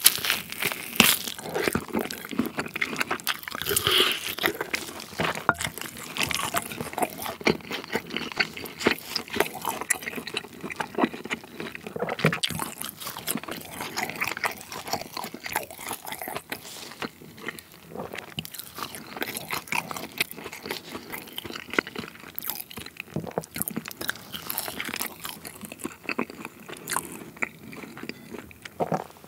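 Close-miked biting and chewing of grilled tomahawk steak: a dense, irregular run of wet mouth clicks and smacks as the meat is torn off the bone and chewed.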